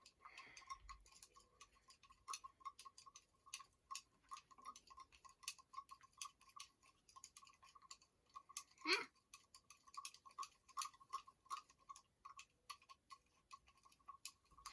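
Faint, quick, uneven ticking clicks, several a second, with one louder short sound about nine seconds in.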